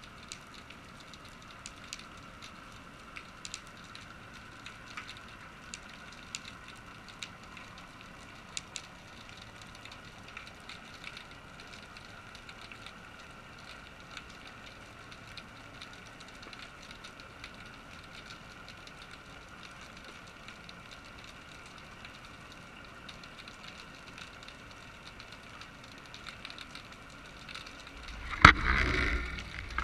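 Underwater sound picked up by a camera in a waterproof housing on a basket-fishing rig hanging in the sea: a steady low hiss with a faint hum and scattered small clicks and ticks. Near the end a loud knock and rushing noise as the rig is jerked.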